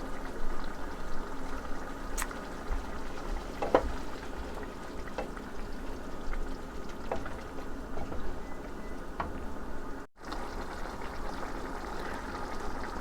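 Water being poured into a pan of sautéed spice paste, then the gravy bubbling steadily, with a few sharp clicks scattered through.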